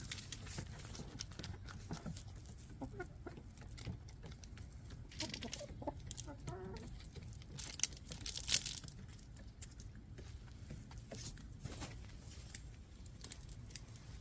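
Backyard hens clucking softly now and then, with a few sharp clicks, the loudest a little past the middle, over a steady low rumble.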